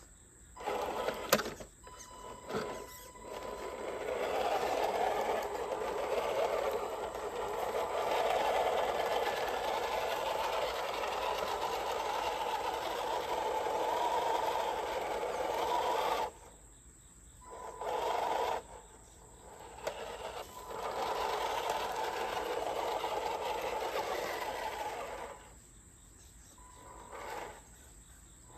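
An RC crawler truck's electric motor and gear drive whine as the truck climbs and crawls, in short bursts at first, then in a long steady run that cuts off about halfway through. Shorter runs follow and stop a few seconds before the end.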